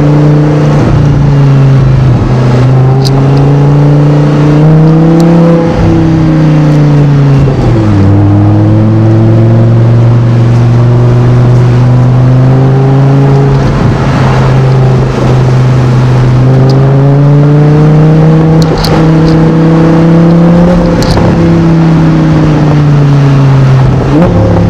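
Tuned Audi R8's engine pulling hard, heard from inside the cabin: its note climbs, drops sharply at a gear change about eight seconds in, then climbs slowly again and eases off near the end. Loud throughout.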